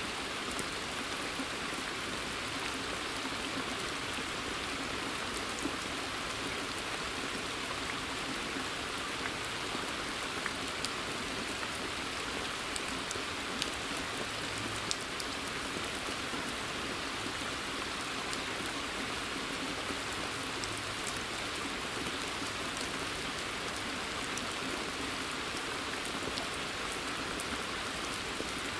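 Steady rain falling in a forest: an even patter with scattered sharper ticks of single drops.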